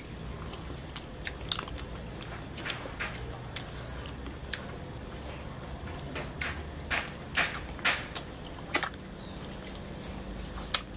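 A person biting into and chewing glazed barbecued chicken wings, with short smacking mouth clicks at irregular intervals over a low steady hum.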